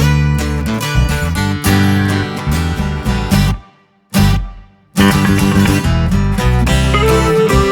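Background music with strummed guitar. It cuts out for about a second and a half around the middle, with one short note in the gap, then starts again.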